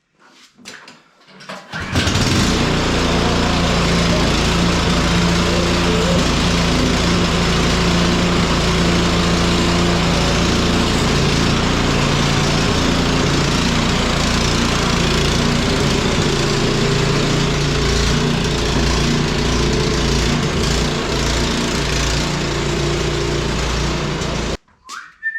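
Cub Cadet 1X single-stage snow blower's small engine, its carburetor freshly cleaned, catches about two seconds in and runs steadily for some twenty seconds, then cuts off abruptly near the end.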